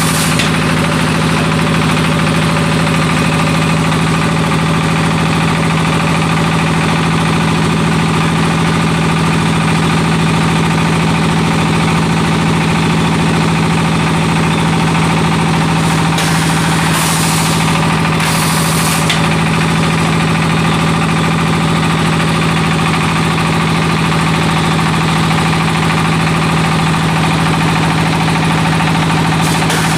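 BA02S automatic clay-brick extruding machine running steadily under power, a loud, even engine-like drone with a constant low hum.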